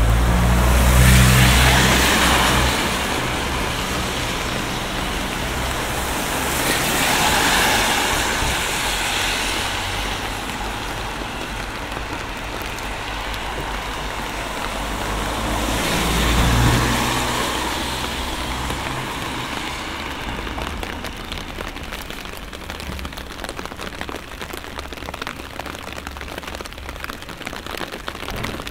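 Vehicles passing on a wet street, their tyre hiss swelling and fading three times: about a second in, around seven seconds in, and around sixteen seconds in. Steady rain falls throughout and is all that remains in the second half.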